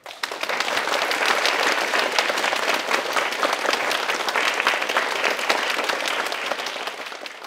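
Audience applauding: dense clapping that breaks out all at once, holds steady, and tapers off near the end.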